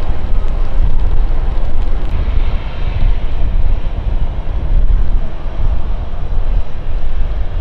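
Jet airliner engines rumbling, with strong wind buffeting the microphone.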